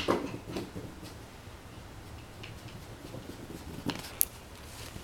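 A small puppy fetching a rope toy on carpet, with faint knocks and handling noises in the first second and a sharp click followed by a second, higher click about four seconds in.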